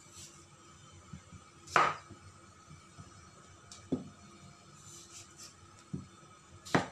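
Chef's knife chopping through chayote and knocking down onto a wooden cutting board: four sharp chops, the loudest about two seconds in and just before the end.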